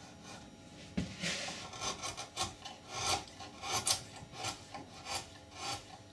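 A freshly sharpened carving tool pushed by hand through wood: a series of short slicing cuts at an uneven pace of about two a second, with a knock about a second in.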